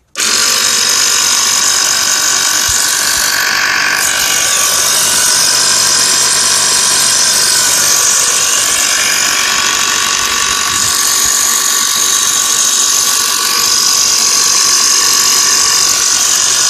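Small portable air compressor starting abruptly and then running steadily with a high whine, pumping air into a riding lawn mower tire that is slow to air up.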